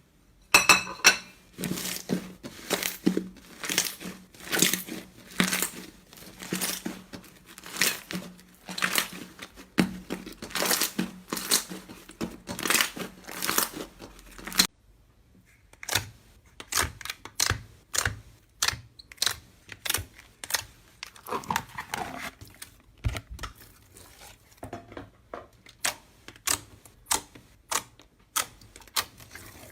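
Slime being squeezed and pressed by hand, giving dense crackling and popping. About halfway through the sound changes abruptly to sparser, sharper pops.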